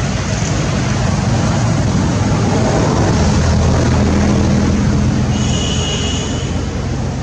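A motor vehicle's engine hum, growing louder through the middle and easing off toward the end, as from a vehicle passing close by. About five and a half seconds in comes a brief high whine.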